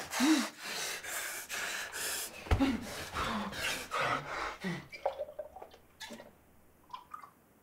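A man breathing hard in quick, gasping breaths, with a few short groans, then settling down. In the last couple of seconds there are faint small clicks and gulps as he drinks from a bottle.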